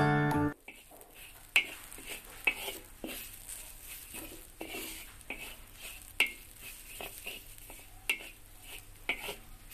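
A chiming music jingle ends about half a second in. After that, a wooden spatula scrapes and stirs grated fresh coconut around a dry wok to toast it, with irregular sharp scrapes every second or so over a faint hiss.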